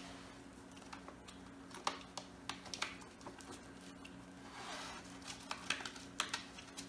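Faint squishing and rubbing of gloved hands spreading petroleum jelly over a tire sidewall, with scattered light clicks and crinkles from an index card tucked against the steel wheel rim. A steady low hum sits underneath.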